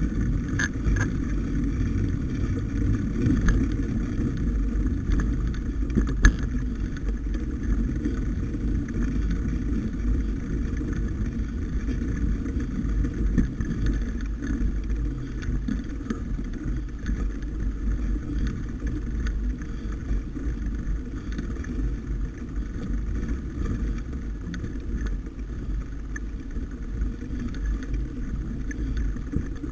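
Steady low rumble and wind buffeting on the microphone of an action camera riding along on a mountain bike as it climbs a snowy, muddy dirt track, with scattered knocks from the bumpy trail and one sharp knock about six seconds in.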